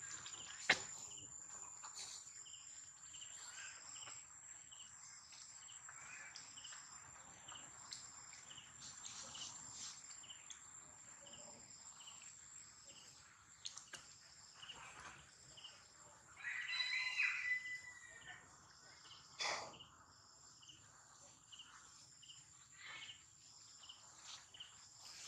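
Insects droning steadily in one high, even tone, with a faint chirp repeating about twice a second. A short clear call, the loudest sound, comes about sixteen seconds in, and a sharp click sounds just under a second in.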